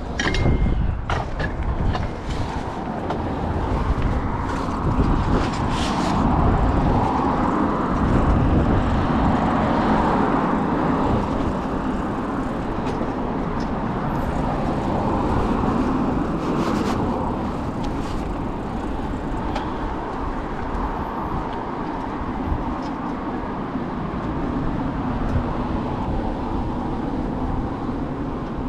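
Steady city road traffic noise heard from a moving bicycle, with a few sharp clicks and knocks in the first few seconds.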